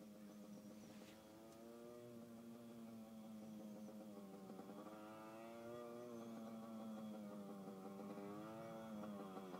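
Distant Yamaha RT100 dirt bike, a small single-cylinder two-stroke, riding steadily and growing slowly louder as it approaches. The revs dip and pick up again about four and a half seconds in and once more near the end.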